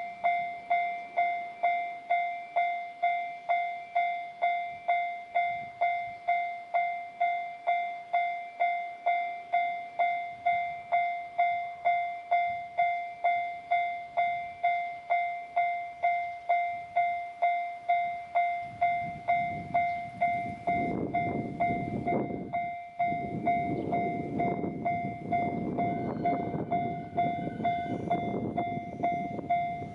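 Japanese level-crossing warning signal ringing its "kan-kan" tone at an even beat, a little over two strikes a second. From about two-thirds of the way in, a train rumbles through the crossing for roughly ten seconds while the signal keeps ringing.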